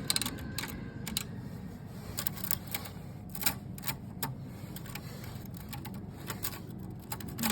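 Old mechanical typewriter being typed on: sharp key strikes at an uneven pace, sometimes a few in quick succession, with gaps between.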